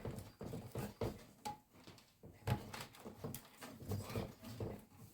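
Irregular small clicks, taps and rustles of hands working a cable connector and parts inside a PC case.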